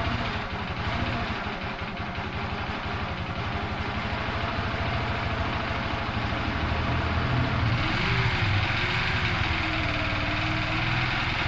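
Yamaha YBR 125's single-cylinder four-stroke engine idling with a raspy, gargling noise, an odd sound the owner is trying to pin down. It grows slightly louder about eight seconds in.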